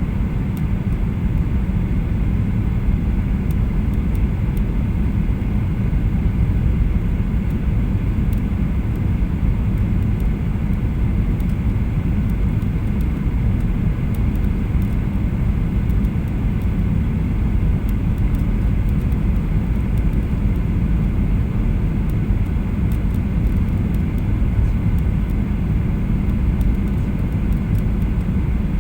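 Steady low rumble of a Boeing 737-800's engines and airflow heard from inside the passenger cabin, with no sudden changes.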